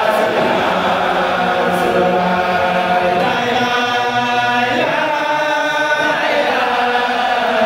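A congregation of men chanting together in unison, holding long notes with slow glides in pitch.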